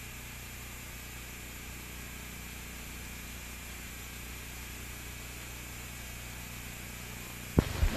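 Steady hiss and hum from a blank stretch of an old tape transfer, with a couple of sharp pops near the end as the soundtrack begins.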